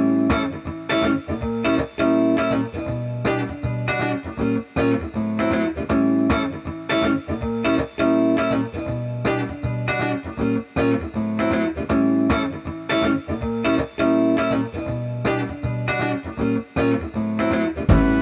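Background music: a plucked guitar tune with a steady rhythm of picked notes.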